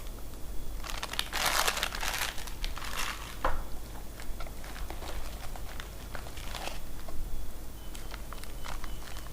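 Packaging being handled and rustling in several bursts, the longest from about a second to three seconds in, with a sharp click shortly after and a smaller rustle later.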